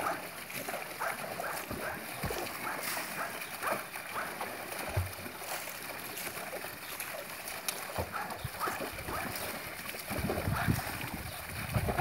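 An American Staffordshire terrier paddling and splashing in a small water-filled basin, while a spout of water pours in steadily. The splashing grows louder and heavier near the end.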